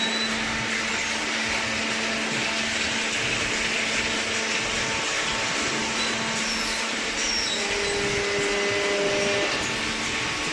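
Machinery running steadily: an even rushing noise over a constant low hum.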